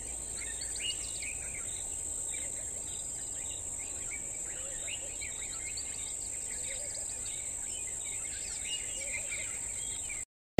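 Bush ambience: a steady high-pitched insect drone with many birds chirping and calling over a low background rumble. It cuts off suddenly near the end.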